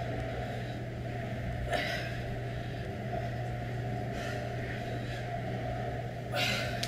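Steady low hum with a short breathy exhale about every two and a half seconds, from a woman doing offset front-rack dumbbell squats.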